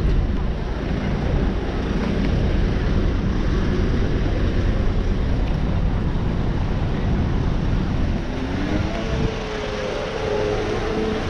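Road traffic going past close by: a steady rush of vehicle noise, with a pitched engine note coming in over the last few seconds.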